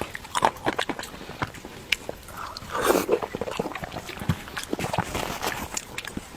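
Close-miked eating sounds of pig brain in red chili oil being chewed: a run of short wet smacks and clicks, with a louder, longer mouth sound about three seconds in.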